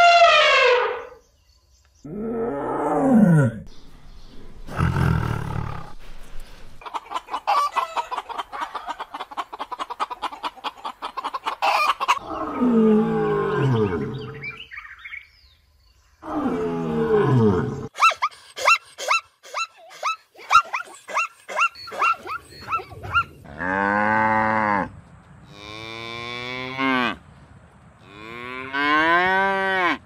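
A run of different animal calls, one after another with short gaps. An elephant trumpets at the start, a string of rapid pulsed calls follows in the middle, and cattle moo three long times near the end.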